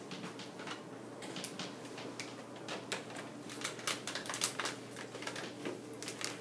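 Chalk writing on a chalkboard: a run of irregular sharp taps and short scrapes as the letters are written.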